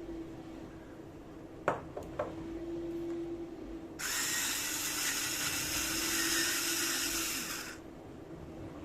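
A few sharp clicks, then an electric kitchen blender runs steadily for almost four seconds and stops.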